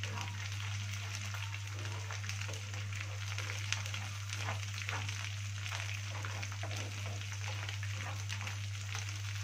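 Chopped chard and coriander greens frying in ghee and oil in a non-stick pan, sizzling and crackling steadily as a wooden spatula stirs through them while they toast. A steady low hum runs underneath.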